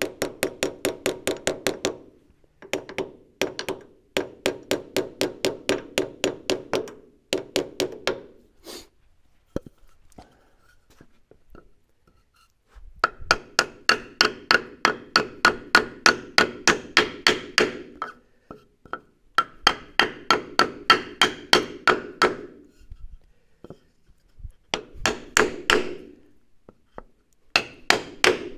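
Rapid hammer blows driving a new wheel seal onto a Bobcat S250 skid steer's axle tube, partly struck through a wooden board held against the seal. The strikes come about four to five a second in bursts of several seconds, each with a short ring, with a longer pause about a third of the way through.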